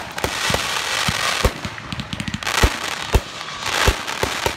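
Aerial fireworks bursting overhead: a dense, continuous crackling from many bursting stars, punctuated by about four louder booms.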